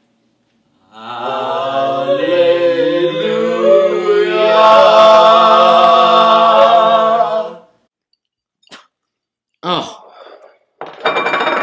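Several young voices singing one long held chord a cappella for about seven seconds, swelling louder about halfway through before stopping abruptly.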